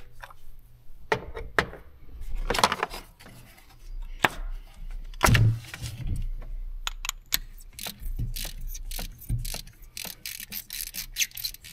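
Ratchet and socket clicking and hand tools clattering as a spark plug is worked out of a pickup's V8 engine. There is a heavier knock about five seconds in and a quick run of ratchet clicks near the end.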